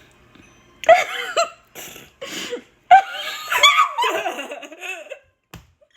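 High-pitched laughing in bursts, starting about a second in, loudest at about one and three seconds in.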